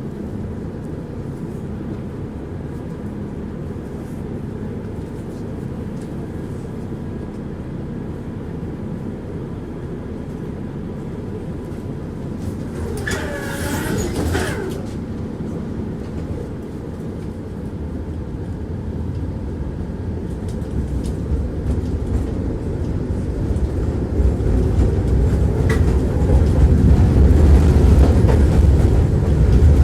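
Tram running along the track, heard from inside the passenger car: a steady low rumble of wheels and motors. A brief wavering squeal comes about halfway through, and the rumble grows louder over the last third.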